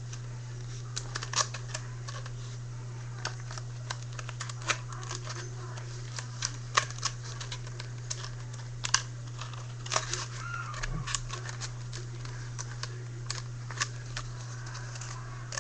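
Rolled paper tubes crinkling and crackling in irregular sharp clicks as one tube is worked into a wider one, over a steady low electrical hum.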